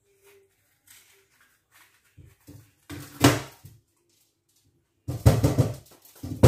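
Knife slicing green peppers on a cutting board in short bouts: a few light cuts about two seconds in, a louder run around three seconds, and another near the end.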